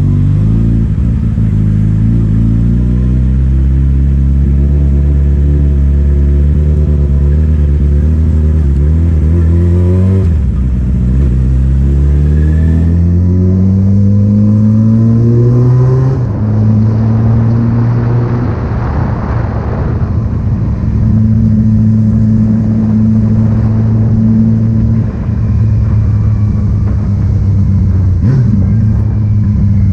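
Vehicle engine accelerating: its pitch climbs steadily for about ten seconds, drops briefly at a gear change, climbs again for about six seconds, then settles to a steady cruise.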